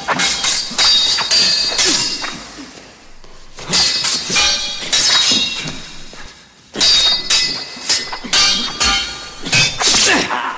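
Metal swords clashing in rapid flurries of ringing strikes: three bursts of several blows each, the first at the start, the next about four seconds in and the last about seven seconds in, with short lulls between.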